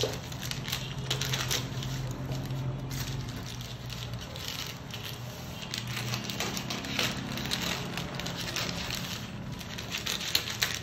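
Baking paper crinkling as it is handled and cut with scissors: a run of sharp snips, clicks and rustles, with a low steady hum underneath part of the time.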